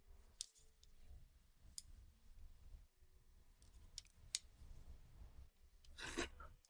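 Faint clicks of chopsticks and a metal spoon against a noodle bowl, then a short slurp of noodles near the end, over low room tone.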